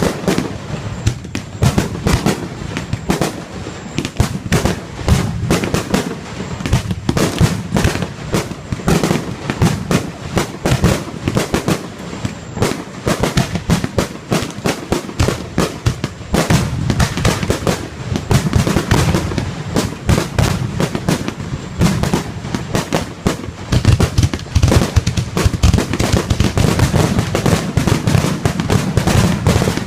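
Aerial fireworks display going off in a continuous rapid barrage, many sharp bangs and crackles a second over a low rumble of booms.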